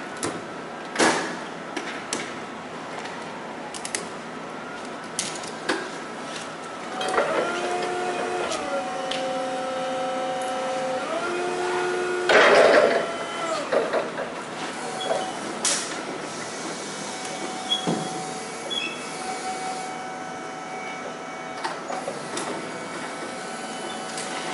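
Crinkling plastic tarp and strap webbing being pulled and cinched, with scattered sharp clicks and knocks. Midway a mechanical whine steps between a few steady pitches for about five seconds, ending in a loud rushing burst.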